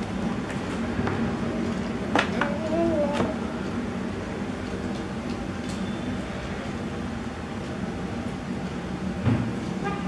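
Steady low background hum with a few sharp clicks and knocks, the loudest about two seconds in and again near the end, and a brief wavering tone just after the first click.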